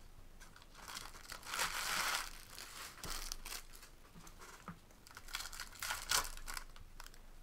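Foil baseball card pack wrappers crinkling and tearing as they are opened by hand. The rustling comes in uneven bouts: a long, loud one about two seconds in, a shorter one a second later, and another run from about five to six and a half seconds in.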